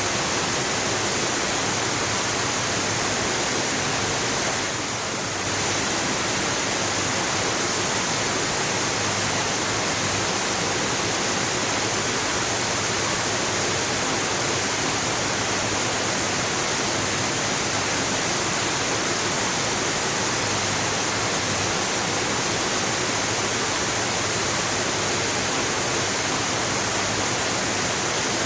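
Waterfall rushing: a steady, dense hiss of falling water, dipping slightly for a moment about five seconds in.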